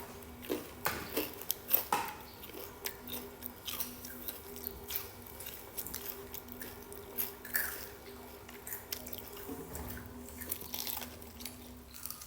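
Close-up chewing and biting of a corndog, with irregular crunches and wet mouth clicks. A faint steady hum runs underneath.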